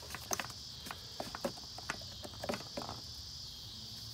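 Scattered light clicks and knocks of gloved hands handling plastic parts at the engine's oil filler, such as the filler cap, over a steady high chirring of crickets.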